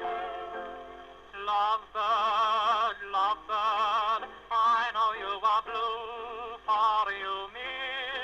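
Song: a held instrumental note fades over the first second or so, then a voice sings with a strong, wavering vibrato. The sound is thin, with no high end.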